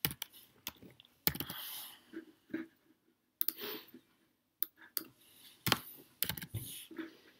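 Computer keyboard typing and mouse clicks in short irregular bursts, with brief pauses between.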